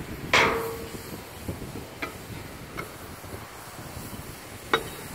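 Metal clanks from the steel latch hardware and hinged lid of a Baier BTSB rail tank car manway as it is unlatched and swung open. A loud clank with a short ring comes about a third of a second in, then a few light clicks, and a sharp knock near the end.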